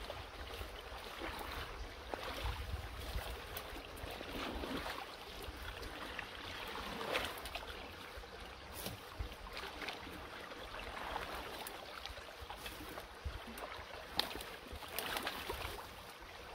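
Shallow water sloshing and splashing around boots and gloved hands as sticks and debris are pulled from a clogged culvert pipe inlet, with scattered cracks and rustles of brush.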